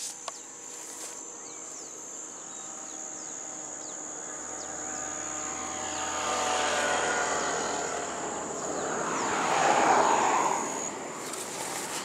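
A road vehicle approaching and passing: its engine hum grows louder over several seconds and is loudest with a rush of tyre noise about ten seconds in, then falls away.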